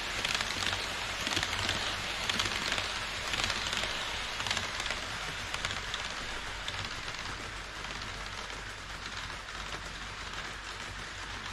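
HO-scale model E5 series shinkansen running along plastic sectional track, giving a dense, steady rattle of wheels on the rails with light clicking at the rail joints. The sound fades gradually as the train moves away.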